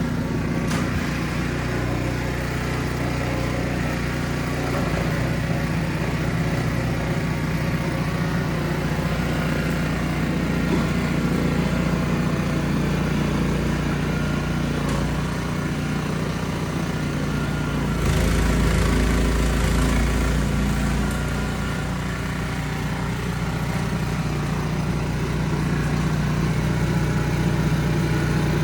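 Ariens Platinum 24 SHO two-stage snow blower running steadily while clearing deep, wet snow, a continuous engine drone. About 18 seconds in the sound gets deeper and a little louder for a few seconds before settling back.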